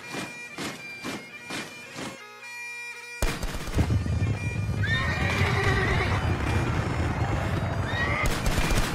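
Background music with held tones. For the first two seconds it has regular thuds about two a second. About three seconds in, a loud rush of horse sound effects starts: hooves and horses neighing, with whinnies about five seconds in and near the end.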